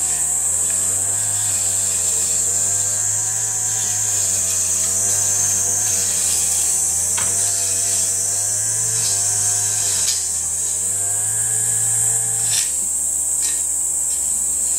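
A small engine running steadily in the background, its revs drifting slowly up and down, under a constant high-pitched drone, with a few light clicks.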